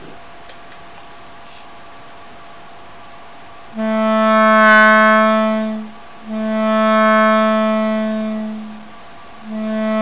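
Acoustic feedback howl from a loudspeaker held over a second loudspeaker that serves as the microphone of a homemade magnetic amplifier built from toroids. The loop sustains itself, a sign of the amplifier's gain. After a few seconds of faint hiss, a loud, steady, buzzy tone rich in overtones sets in about four seconds in, breaks off twice briefly and starts again.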